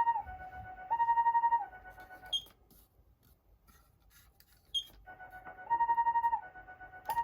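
Patlite siren amplifier sounding a Japanese ambulance-style two-tone hi-lo siren: a higher and a lower electronic tone alternating about every 0.7 seconds. It cuts off with a click about two and a half seconds in, falls quiet for about two seconds, then starts again with a click.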